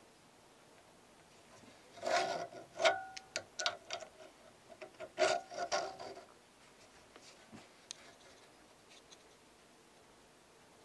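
Clicks, taps and rubbing of small hard parts being handled, in two clusters about two and five seconds in, with a brief ringing tone among the first.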